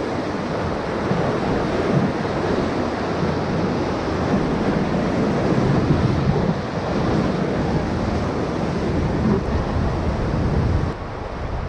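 Whitewater rapid rushing and splashing around a raft, with wind buffeting the microphone. Near the end it drops in level and turns duller.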